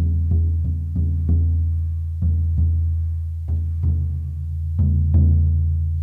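Large oval horse-skin shamanic frame drum struck with a soft beater: deep beats, each with a long low ring. The beats come steadily, about three a second, then slow to pairs of beats with pauses between, and the last pair rings out near the end.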